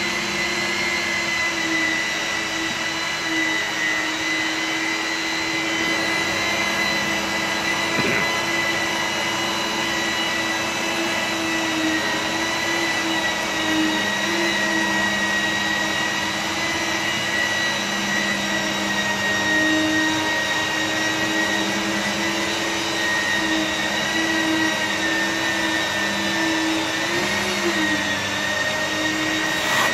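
Steady whine of an electric motor running without a break, its pitch drifting slightly, with a single brief tap about eight seconds in.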